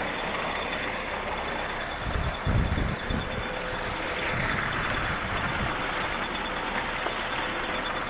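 Irrigation water mixed with pig slurry gushing steadily out of a pipe, over the steady hum of the motor that pumps it. A few low rumbles come about two to three seconds in.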